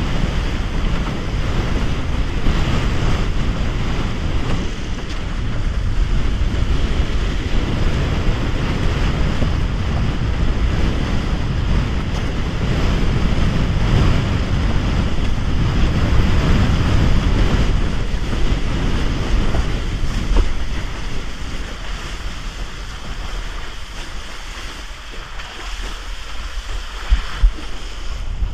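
Wind blasting the microphone over the rush and splash of water under a Bic Bamba raceboard sailing through chop. The noise eases about two thirds of the way through, and two sharp knocks come near the end.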